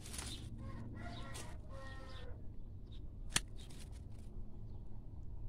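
Bypass pruning shears snip through a rose cane with one sharp click about three and a half seconds in, amid rustling of leaves and stems at the start. Two short pitched calls sound between one and two seconds in.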